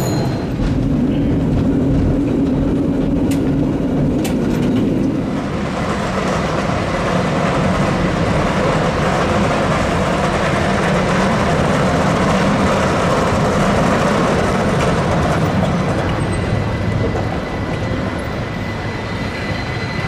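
San Francisco cable car on its street track, with the steady rumble and clatter of the car and the moving cable in the slot beneath the street. The sound changes about five seconds in, from a steadier hum to a broader rumble.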